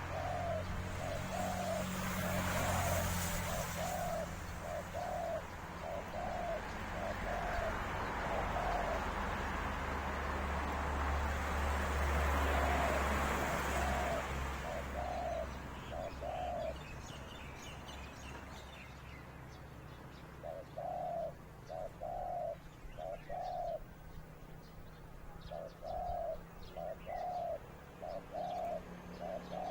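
Zebra dove cooing: runs of short, quick staccato notes, about one or two a second, broken by a pause of a few seconds past the middle. A rushing background noise with a low rumble under it fades out about halfway through.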